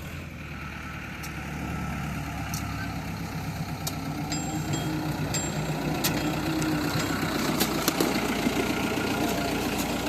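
Diesel engine of heavy equipment running steadily and gradually getting louder, with sharp clicks every second or so.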